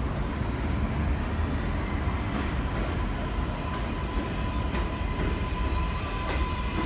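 New York City Subway J train pulling into an elevated station: steady rumble of the cars on the track, with a steady high whine joining about two and a half seconds in as it comes up to the platform.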